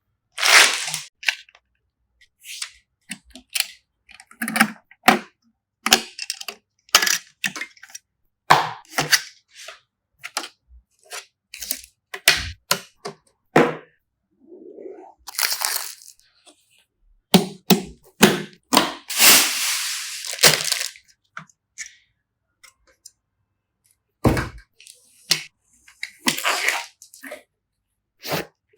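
Computer parts being handled and fitted by hand: a long, irregular run of sharp clicks, taps and snaps of plastic and metal pieces, with a few longer stretches of rustling or scraping.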